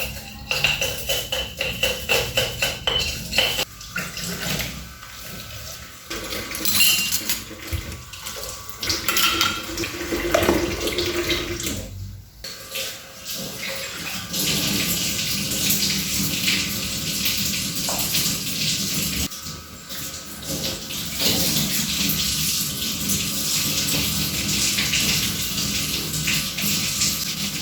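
Water running from a kitchen tap into a sink, with knocks and clinks of kitchenware in the first half. The sound changes abruptly several times, and a steady stream of running water fills the second half.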